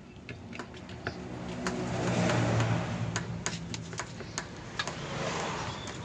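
An engine hum that swells to its loudest about two seconds in and fades away, over scattered irregular clicks and taps of a screwdriver and plastic washing-machine parts being handled.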